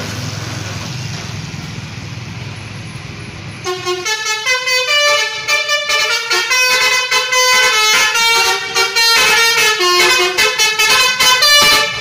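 Traffic and engine rumble, then about four seconds in a bus's Basuri multi-tone telolet air horn starts playing a tune of short notes, several pitches at once, rising and falling in a quick rhythm that carries on to the end.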